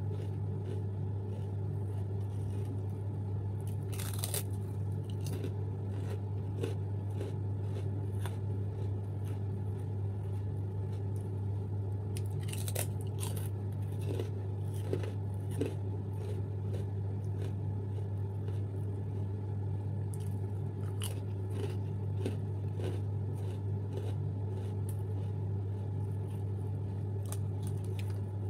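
Chewing and crunching of Want Want rice crackers: scattered crisp crunches, the sharpest about four seconds in and a cluster around twelve to thirteen seconds in. A steady low hum runs underneath.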